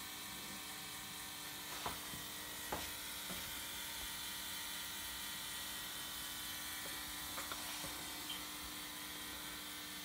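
The small electric drive motor and gearing of a Meccano-built droid running stationary, a steady whir, with a few light clicks.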